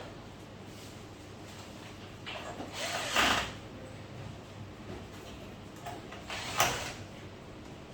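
Two short bursts of mechanical tool noise during work on a TV, the first and louder about three seconds in, the second shorter one near the end.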